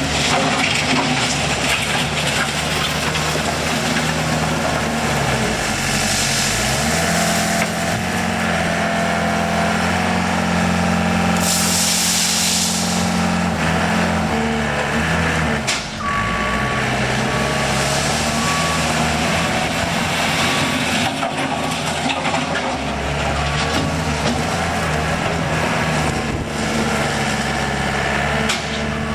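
Komatsu SK1020 skid steer loader's engine running under work, revving up about six seconds in and settling back about fifteen seconds in, with a brief loud hiss about twelve seconds in. A reversing alarm beeps repeatedly in the second half.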